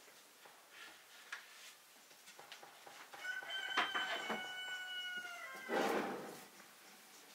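A rooster crowing: one long held call lasting about two seconds, dipping in pitch at its end, followed about half a second later by a short, harsh, louder sound.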